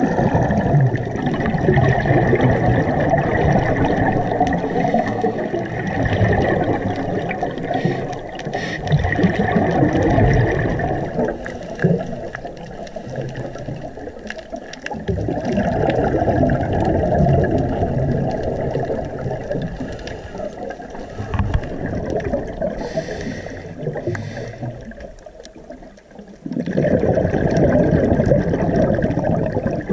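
Underwater water noise, rushing and gurgling, with a scuba diver's exhaled regulator bubbles. It swells and eases over several seconds and drops quieter twice for a few seconds.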